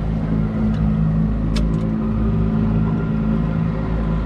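Boat's outboard motor running steadily at trolling speed, a low even hum with a rumble beneath it; a single short click about one and a half seconds in.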